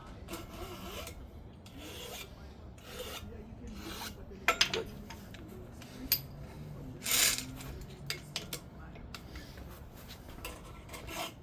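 Hand file rasping across the steel of a chainsaw chain in repeated strokes, about one a second, a few of them louder and sharper. The file is worn, getting cooked.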